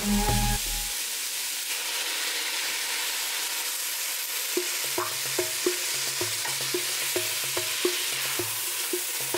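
Vegetables frying in oil in a stainless steel pot: a steady sizzle, with a wooden spoon stirring through them near the end.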